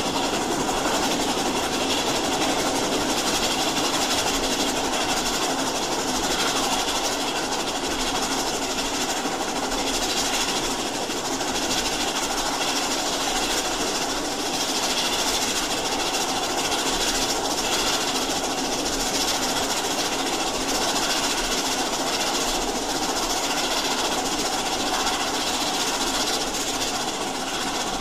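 Steam locomotive running, a steady noisy hiss and rumble of the engine at work.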